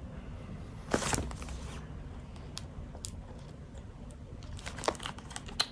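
Knife slitting open a paper mailing envelope: a short rasp of the blade through the paper about a second in, then small scattered clicks and paper rustles, with a couple of sharper ticks near the end.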